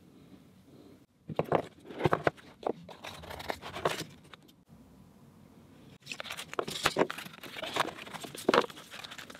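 Cardboard product box being handled and opened: irregular rustling, scraping and light knocks as the lid slides off and the inner tray is handled, in two bouts with a short lull between.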